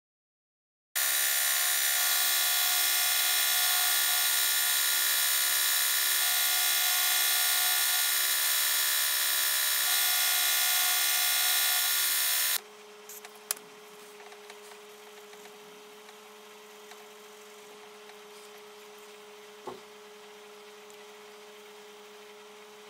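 Small electric belt sander running steadily, with a small metal part held against its belt. It stops abruptly about twelve seconds in, leaving a faint steady hum and a couple of light clicks.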